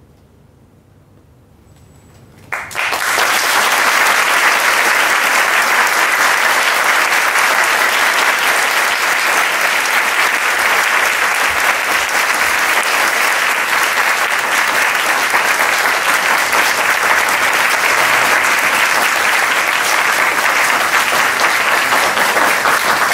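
Audience applause that breaks out suddenly about two and a half seconds in, after a quiet start, and keeps up steadily.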